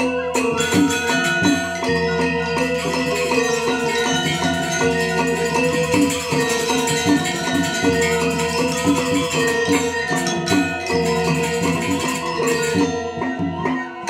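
Balinese gamelan playing Legong dance music: bronze metallophones ringing in fast, dense interlocking figures over a sustained low gong tone.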